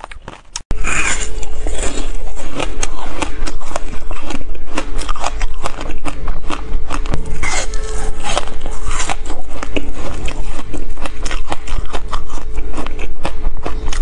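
Close-miked biting and chewing of a thin sheet of frozen passion-fruit ice: a dense, uneven run of sharp crunches and crackles. It is quieter for the first moment, then jumps suddenly louder less than a second in, with a faint steady hum underneath.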